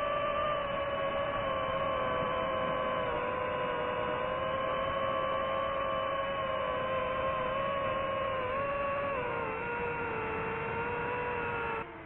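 DJI FPV drone's motors and propellers whining steadily in fast forward flight, the pitch wavering and sagging a little about three quarters in. Just before the end the whine drops suddenly in level and pitch, then climbs again as the throttle changes.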